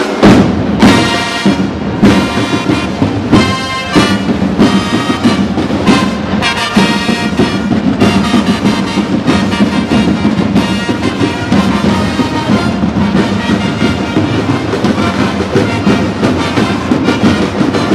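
Live brass and drum music from a marching band moving in formation, with drum strokes throughout.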